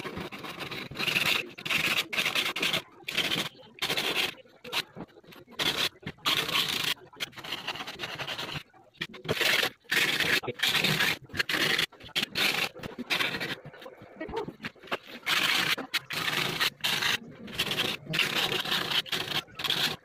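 Thin steel umbrella-rib wire tips rubbed on sandpaper to sharpen them into spear points: quick gritty back-and-forth scraping strokes, broken by brief pauses.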